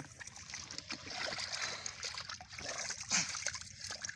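Shallow muddy water splashing and sloshing in irregular small splashes and drips, as the water is churned in hand-fishing for catfish.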